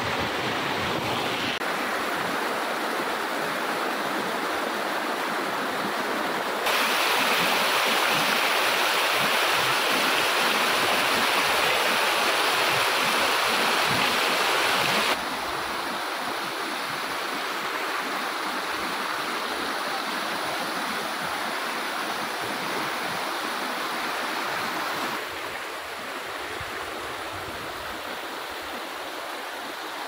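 Waterfall stream rushing and splashing over boulders, a steady roar of water that abruptly jumps louder and then quieter several times.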